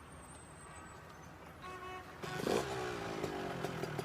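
Motorcycle engine starting about two seconds in with a brief rev, then settling into a steady idle.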